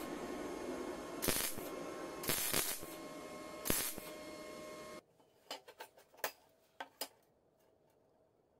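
MIG welder arc crackling steadily with several sharp louder pops while welding a bolt onto steel, cutting off abruptly about five seconds in. After that, a few light clicks and taps as a metal square and ruler are set down on a steel plate.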